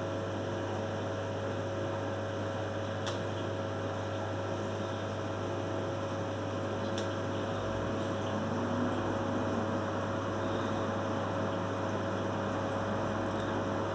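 Steady electrical hum of running aquarium equipment, a constant low drone with a faint hiss, broken by two faint clicks about three and seven seconds in.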